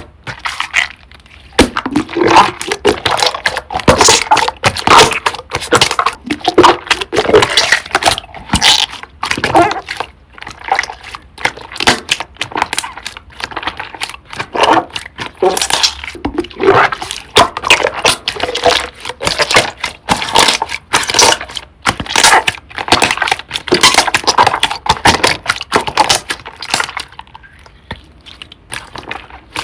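Hands kneading, pressing and stretching a thick cream slime, making rapid wet pops, clicks and crackles in quick runs with short pauses.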